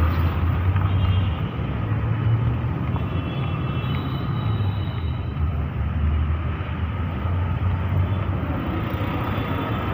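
Busy street ambience: a steady rumble of road traffic and vehicle engines.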